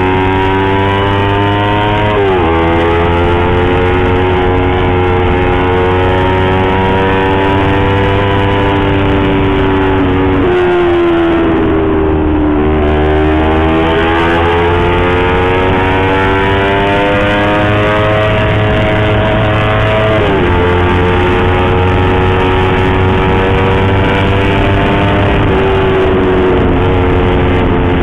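Yamaha YZF-R25 parallel-twin engine through an Akrapovic aftermarket exhaust, running under way. Its note holds fairly steady, drops suddenly in pitch about two seconds in and again about two-thirds through as it shifts up, and dips near the middle before climbing slowly as the bike speeds up.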